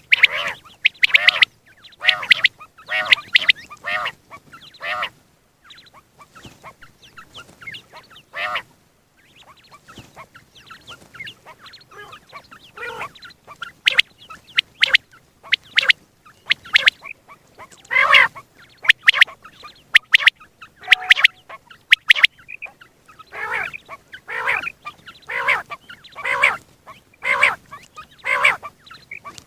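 Common quail calling: short pitched calls repeated in runs, about one or two a second, broken by pauses of a few seconds.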